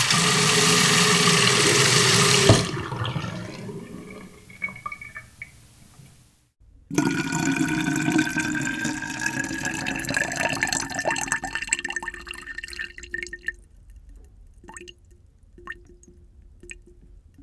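Two water sound effects in a row. First, water rushes loudly for about two and a half seconds, then cuts down and trickles away. After a brief silence, water pours into a vessel with a slowly rising pitch as it fills, then thins out into scattered drips.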